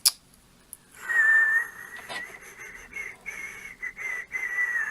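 A person whistling one near-steady, slightly wavering note for about four seconds, starting about a second in. A sharp click comes at the start, with a few light clicks while the whistling goes on.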